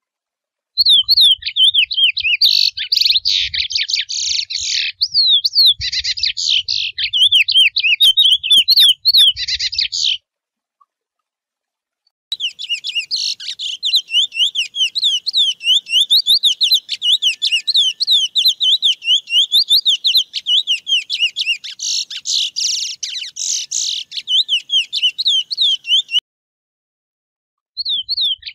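Male chestnut-bellied seed finch (curió) singing its wild 'mateiro' song: long runs of rapid whistled warbling notes. A phrase of about nine seconds is followed by a two-second pause and a longer phrase of about fourteen seconds, and a new phrase begins near the end.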